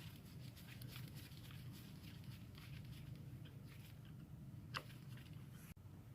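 Faint scattered clicks and rustling from small parts and tools being handled during motorcycle ignition work, with one sharper click a little before five seconds in, over a low steady hum.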